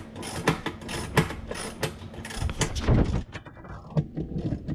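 A socket ratchet clicking, with sharp metal clicks and knocks as it turns the plastic mounting nuts of a dishwasher heating element. The clicks come at an irregular pace and thin out after about three seconds.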